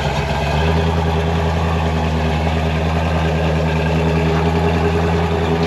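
Pickup truck engine idling steadily on a chassis dyno ahead of a power pull; its low, even note firms up about half a second in and then holds.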